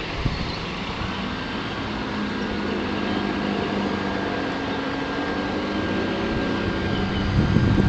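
Bass boat outboard motors running: an Evinrude outboard close by at low speed while other boats run fast farther off. A steady engine hum whose pitch slowly drifts, with a louder low rumble building near the end.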